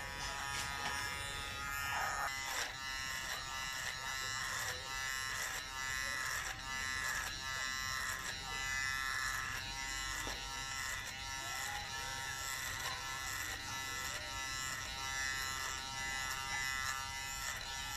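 Electric hair clipper running with a steady buzz as it cuts hair at the back of the head.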